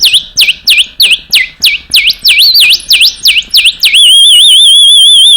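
Clay bird whistle blown to mimic a sparrow: a loud run of short swooping chirps, about three a second, then about four seconds in a steady warbling trill.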